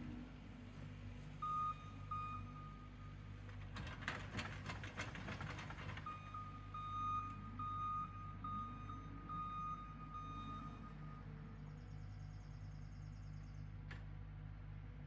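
The engine of the machine working a power rake runs steadily, while a reversing alarm beeps about twice a second in two spells. A short rattling clatter comes about four seconds in, between the spells of beeping.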